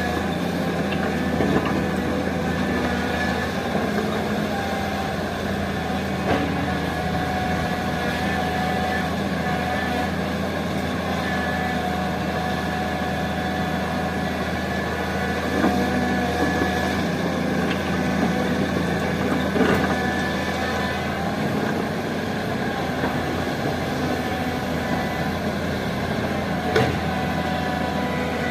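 Heavy-equipment diesel engine running steadily, with a few short knocks scattered through it.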